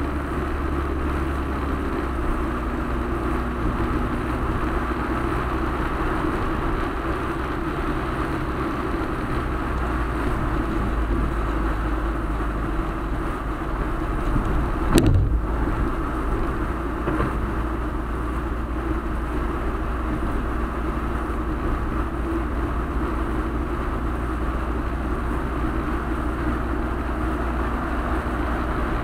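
Car driving at steady speed, heard from inside the cabin: constant engine and tyre road noise. About halfway through comes a single sharp thump as the wheels cross a set of railroad tracks.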